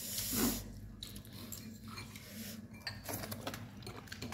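Spoons and dishes clinking and scraping during a shared meal. A short noisy rush comes about half a second in, followed by scattered light clicks.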